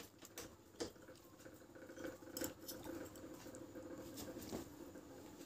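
Faint eating sounds: scattered soft clicks and taps of a metal fork and spoon working instant noodles in a paper cup, with quiet chewing.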